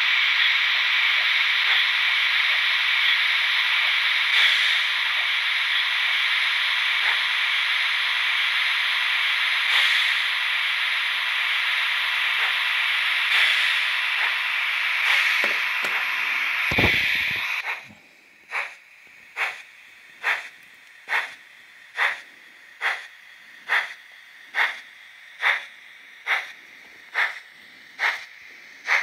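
Fleischmann HO BR 18 model steam locomotive's digital sound decoder playing a loud, steady steam hiss through its small loudspeaker. A short low thump comes at about 17 seconds, the hiss cuts off, and slow, even exhaust chuffs follow at a little over one per second as the model moves off.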